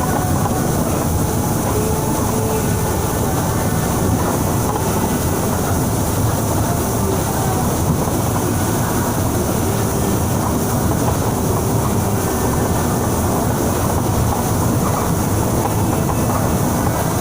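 Steady low rumble of a TransJakarta bus driving along the busway, with an even high hiss of heavy rain over it.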